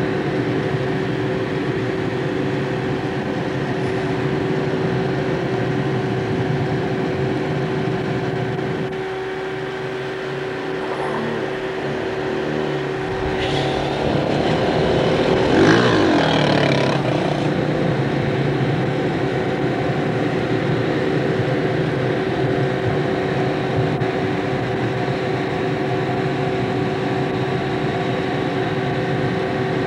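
Large farm tractor's engine running steadily at a constant speed. About halfway through, a few seconds of louder rushing noise rise over it.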